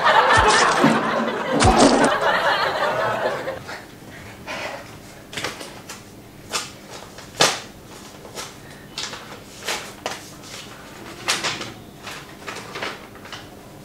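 A young woman's laughing, shrieking voice with two dull thuds in the first two seconds, then a run of soft, scattered clicks and taps, one or two a second.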